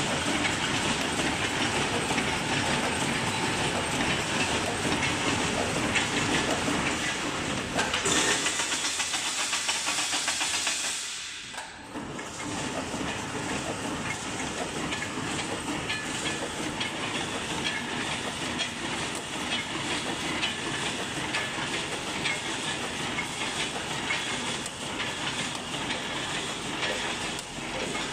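Automatic wire mesh welding machine running: a steady mechanical clatter with a hiss over it, as the wire is fed, spot-welded and the mesh pulled through. The sound dips briefly about eleven seconds in, then carries on.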